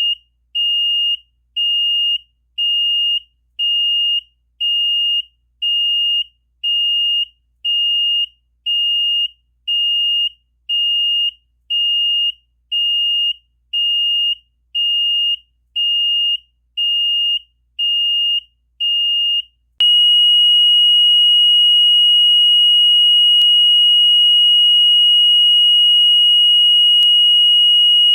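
Buzzer of a Yong Yang (TYY) fire alarm control panel beeping about once a second on one high tone: the panel's intermittent signal for a trouble condition such as a line break, start-up or low water. About twenty seconds in it changes to a steady continuous tone, the panel's fire indication.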